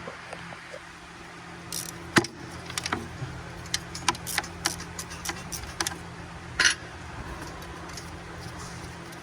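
Metal hand tools clinking and clicking irregularly against engine parts during hand work, about a dozen sharp clicks with the loudest a short one about six and a half seconds in, over a steady low hum.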